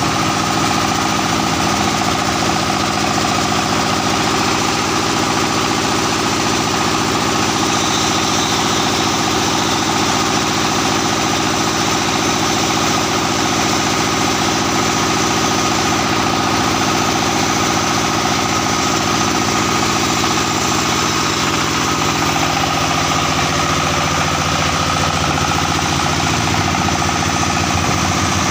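Small single-cylinder diesel engine running steadily at idle, the engine that drives a plastering machine's hose pump through a V-belt and reduction gearbox.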